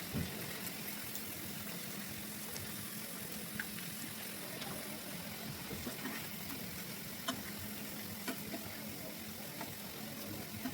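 Food sizzling steadily as it fries in a pan, with a few small clicks scattered through it and a steady low hum beneath.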